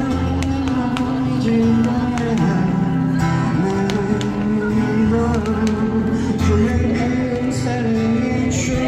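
Music: singing over a strummed acoustic guitar, from buskers performing through a small amplifier.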